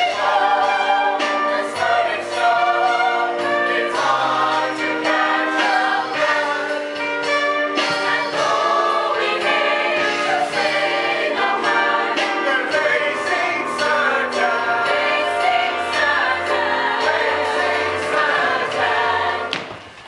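A chorus of voices singing a musical-theatre number. The music stops near the end.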